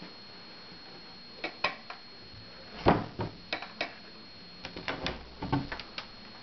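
Brass ring pulls clinking and knocking against their backplates as a pair of wooden cabinet doors is pulled open: a string of small clicks and knocks, the loudest about three seconds in.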